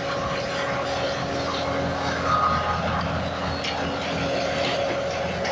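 Skid steer engine running steadily under work, with a brief higher whine just past two seconds and a sharp click about three and a half seconds in.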